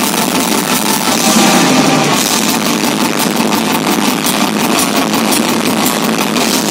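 Metal band playing live, full volume: distorted electric guitars forming a dense wall of sound over rapid, evenly spaced drum hits.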